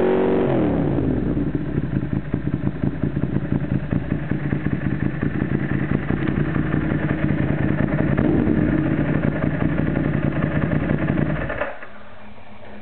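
Ducati Monster S4Rs V-twin running through aftermarket HPE exhausts. It drops back from a throttle blip at the start to a lumpy, pulsing idle, with a small rev around two-thirds of the way in. The engine is switched off near the end.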